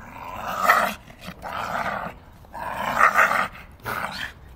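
Staffordshire bull terrier growling in about four rough bursts as she attacks a tyre swing.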